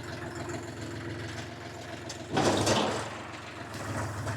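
25 hp UHI 254 tractor engine idling steadily. About two and a half seconds in comes a brief, louder rushing noise lasting about half a second.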